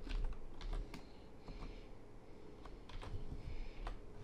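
Computer keyboard typing: a handful of irregular keystrokes as a short name is typed.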